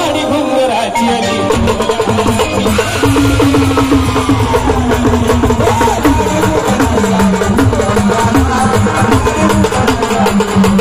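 Gondhal folk music: fast, even drumming with a gliding melody over it.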